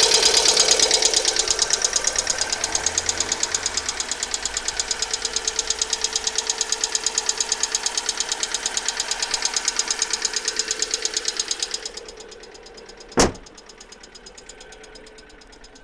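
Alfa Romeo 147 1.6 Twin Spark engine running with a fast, even knocking from the valvetrain: worn hydraulic lifters, the fault that went away once all sixteen were replaced. The knocking drops much quieter about twelve seconds in, followed by one sharp click.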